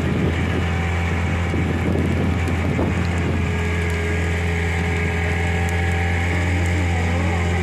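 Motor of a small outrigger passenger boat running steadily under way, a constant low drone that holds one pitch.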